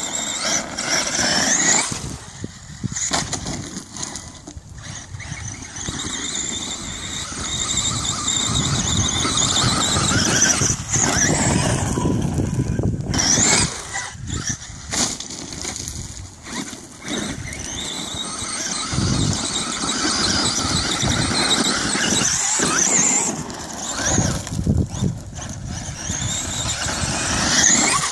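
Radio-controlled monster truck's motor whining, its pitch rising and falling over and over as the throttle is opened and closed, with tyre and gravel noise underneath.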